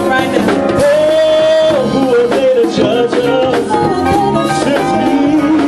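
Live soul band playing: drums, bass and keys under a smooth, sustained lead melody line that bends between held notes.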